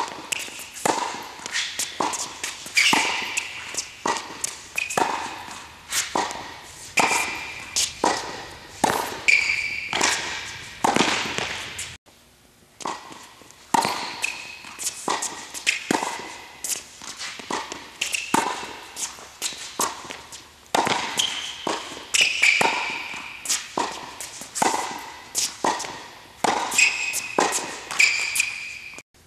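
Tennis rally on an indoor hard court: a ball struck by rackets and bouncing, sharp pops about once a second, with short high sneaker squeaks on the court between shots. The strokes break off briefly about 12 seconds in, then resume.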